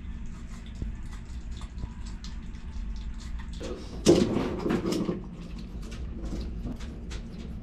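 Screaming hairy armadillo eating insects and mealworms from a bowl: a run of small, irregular clicks and crunches. A louder bump and rustle, lasting about a second, comes about four seconds in.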